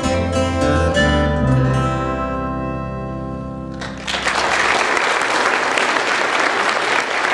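A band of harmonica, acoustic guitars and pedal steel guitar holds the final chord of a bluegrass gospel song, which fades away; about four seconds in, the audience breaks into steady applause.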